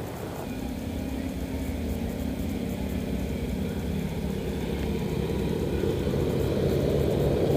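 Suzuki GS850 inline-four motorcycle engine running under way, with wind and road noise, growing steadily louder.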